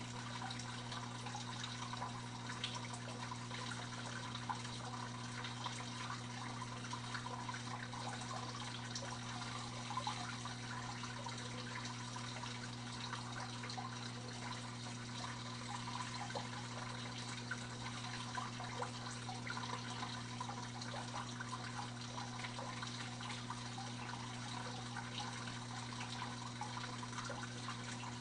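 Aquarium water trickling and bubbling steadily, with many small crackles and drips, over a steady low hum.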